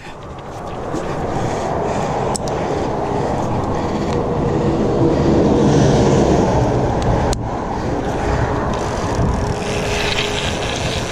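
Road traffic passing on the bridge: a steady rumble of tyres and engines that builds over the first few seconds and then holds, with a faint hum in the middle.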